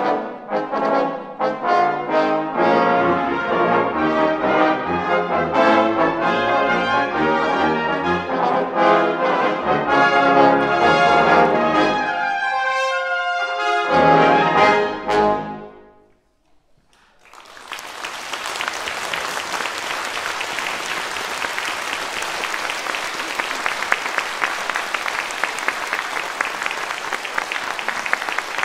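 Brass dectet of trumpets, horn, trombones and tuba playing a lively passage that closes on a loud final chord about fifteen seconds in. After a second or so of quiet, the audience breaks into steady applause.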